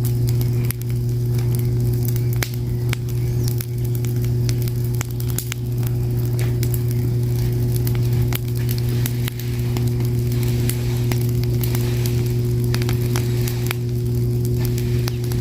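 Fire crackling, with irregular sharp pops and snaps over a steady low hum.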